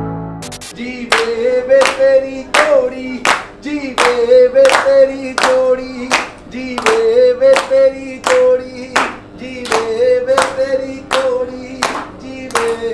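A voice singing a Punjabi wedding blessing song through a microphone and loudspeakers, with a group of people clapping in time at about three claps a second.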